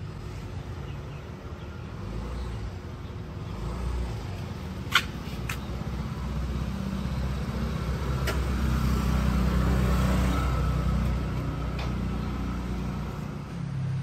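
Street traffic: a low vehicle engine rumble builds to its loudest about two-thirds of the way through, then eases off, as a vehicle passes. A sharp click about five seconds in, with a few fainter clicks after it.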